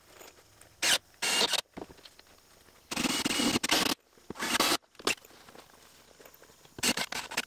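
Several short bursts of scraping and rustling, each under a second long, with a few sharp clicks between them, from building materials being handled against a wall.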